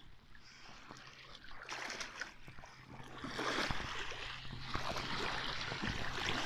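Seawater sloshing and splashing close to the microphone, which is held just above the surface in shallow water. Faint at first, the splashing grows much louder about three seconds in.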